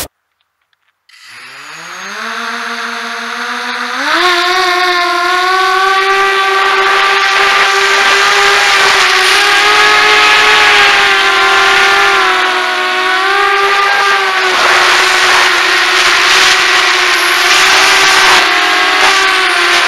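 Walkera Runner 250 racing quadcopter's brushless motors and propellers spooling up about a second in, their whine rising steadily in pitch. About four seconds in it jumps higher as the throttle comes up for takeoff, then holds a loud, steady whine that wavers slightly in pitch through the flight, heard close up from the onboard camera.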